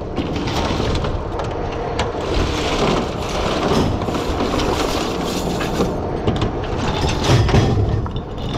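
Oysters and shell clattering and knocking as a dredged load is culled by hand on a wooden culling board, over the steady running of the workboat's engine.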